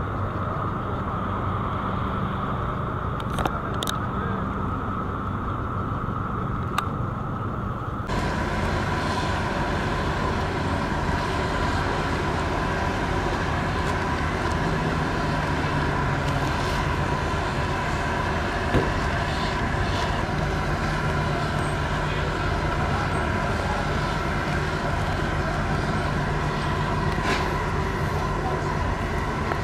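Steady mechanical drone of ferry engines running, a constant hum with a held tone. About eight seconds in it suddenly becomes brighter and fuller.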